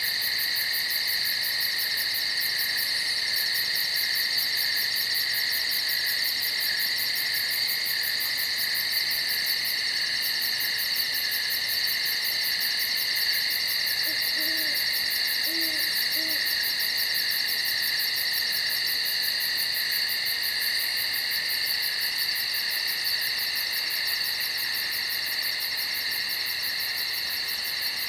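Night insect chorus: a steady high shrill drone with a fast pulsing trill above it. About halfway through, an owl hoots three times, short and low.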